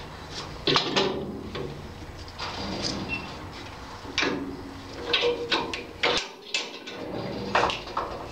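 Irregular clicks and clunks of metal wood-lathe parts being set by hand: the tailstock quill lock and the tool-rest locking levers being worked, and the wooden blank knocking as it is turned by hand between the centers.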